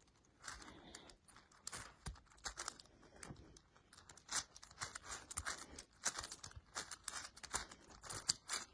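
Faint plastic clicking and clacking of a 6x6 Rubik's cube being turned three layers at a time, an irregular run of quick turns.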